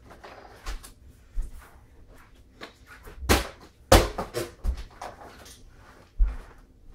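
Plastic water bottle thudding and bouncing on the floor several times during bottle-flip attempts, mixed with footsteps and scuffs; the loudest knocks come about three and four seconds in.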